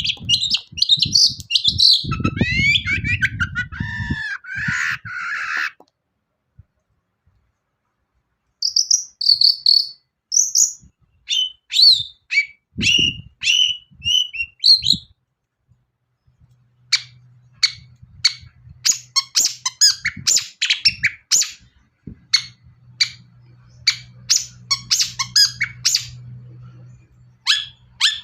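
Long-tailed shrike (cendet) singing in three bursts. First comes a fast run of sweeping, rattling trills, then after a pause a series of separate chirps, then after another pause a rapid string of short sharp notes. Low thumps sit under the first burst and a faint low hum under the last.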